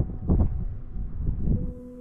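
Wind buffeting the microphone in gusts, a heavy low rumble. Soft sustained tones of ambient music come in near the end.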